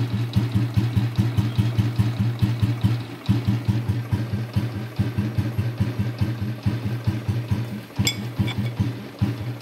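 1969 Royal Enfield Bullet 350's single-cylinder four-stroke engine idling while warming up from a cold start, a fast, even thump of about six beats a second that stumbles briefly a little after three seconds and again near the end. A light click about eight seconds in.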